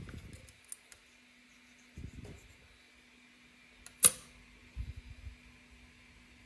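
Hands handling small cut pieces of polymer clay on a tabletop: soft low bumps about two and five seconds in, and one sharp click about four seconds in, the loudest sound, over a faint steady hum.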